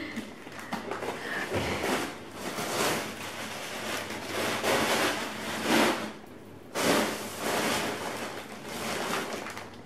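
Thin plastic shopping bag rustling in repeated uneven bursts as hands rummage through it.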